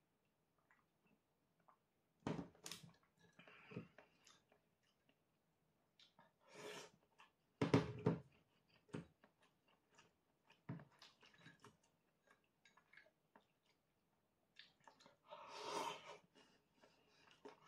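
Faint sounds of a person eating miso ramen with chopsticks: short separate bursts of chewing and slurping, the longest near the end, with small clicks in between.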